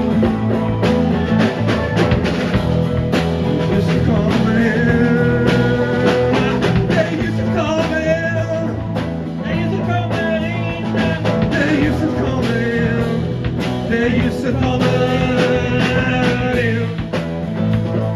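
Rock band playing an instrumental passage: drums keeping a steady beat under bass and guitar, with a wavering lead melody coming in three phrases.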